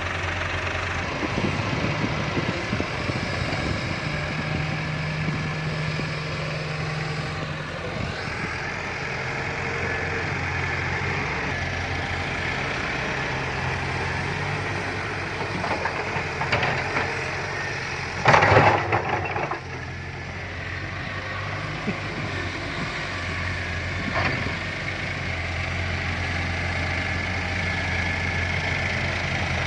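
Fiat-Hitachi 150.3 excavator's diesel engine running steadily while the machine works, its note shifting up and down. A brief, louder, harsher sound comes about eighteen seconds in.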